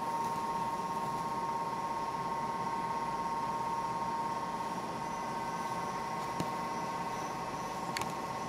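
Steady high-pitched hum over a low hiss, with two faint clicks near the end.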